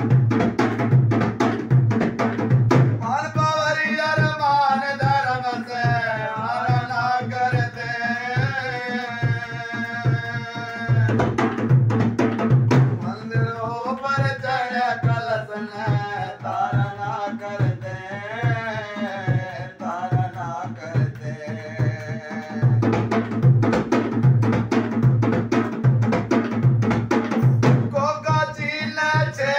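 A male voice singing a Hindi folk bhajan over a dholak drum played in a steady, quick rhythm. The singing comes in long phrases, with stretches where only the drum plays: at the start, about halfway through, and again before the voice returns near the end.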